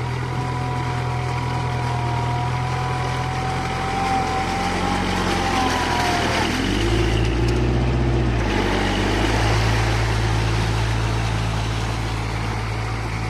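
Kubota MU4501 tractor's four-cylinder diesel engine running steadily under load as it drags a levelling board on cage wheels through flooded paddy mud. A thin high whine sits over the engine for the first half. About halfway through, the engine note drops lower and grows a little louder for a couple of seconds before settling back.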